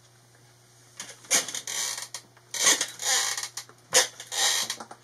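Squeaky chair creaking and squeaking in a run of irregular bursts, about five of them, starting about a second in.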